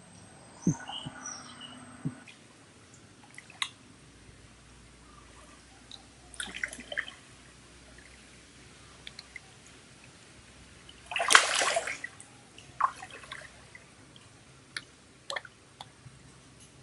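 Hands stirring the water of a shallow stream, giving scattered small splashes and drips, with one louder splash lasting about a second a little past the middle.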